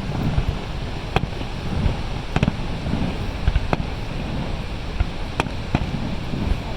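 Fireworks going off in a string of sharp bangs about a second apart, over a steady rushing roar of falling water.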